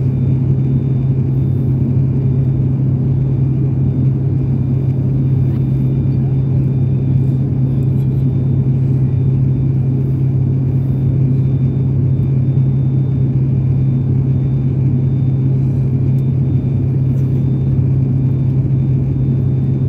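Steady cabin drone of a turboprop airliner in cruise: a loud, even low hum from the propellers and engines with faint high whines above it.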